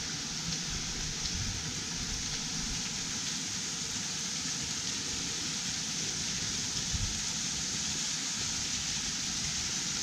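Waterfall spilling over a sandstone bluff into a shelter cave, a steady hiss of falling and splashing water; the falls are running high rather than at their usual trickle.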